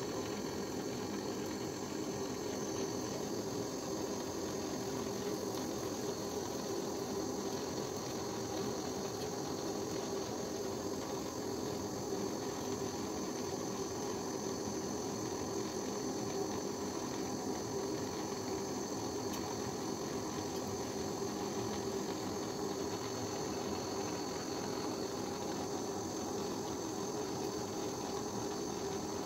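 Handheld gas torch burning with a steady hiss as its flame heats silver scrap in a crucible to melt it.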